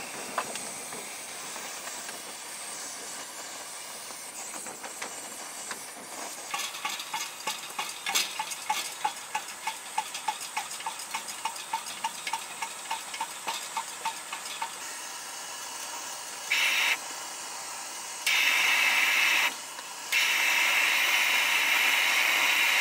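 Brass pressure lantern hissing as it burns. From about six seconds in, its fuel tank is hand-pumped, about two strokes a second for some eight seconds, adding pressure. Later the burner hiss jumps louder in short spells and then holds loud to the end.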